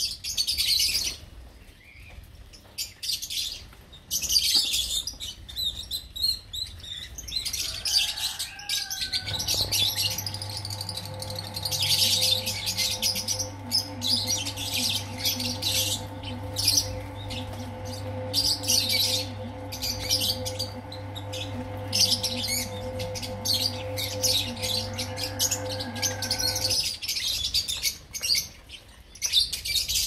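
A flock of lovebirds in an aviary chirping and twittering constantly, with rapid overlapping high calls. A steady low hum joins about a third of the way in and cuts out a few seconds before the end.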